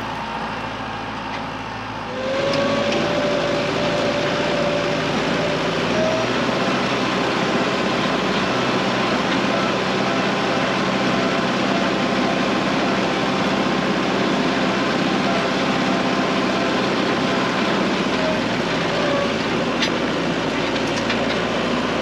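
Compact loader tractor's engine running steadily while the tractor is driven carrying a log in its front grapple, getting louder about two seconds in.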